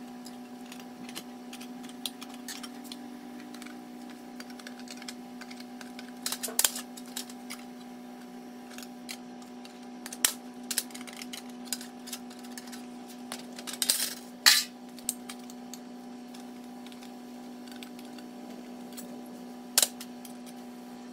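Sheet steel being cut and handled: scattered sharp metallic clicks and clinks, a few much louder ones, over a steady hum.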